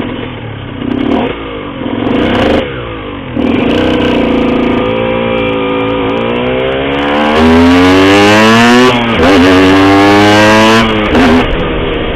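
Cagiva Mito 125 two-stroke single with an Arrow expansion-chamber exhaust. A few short throttle blips come first, then it accelerates hard with the revs climbing steadily. The pitch drops sharply at a gear change about nine seconds in, climbs again, and eases off near the end.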